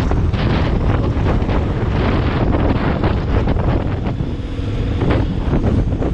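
Wind buffeting the microphone: loud, gusty rumble that covers everything else.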